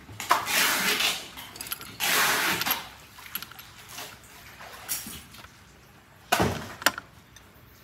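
Metal engine parts being handled: two short rough scraping noises early on, a few light ticks, and a brief scrape with a click near the end, as the clutch assembly is worked loose.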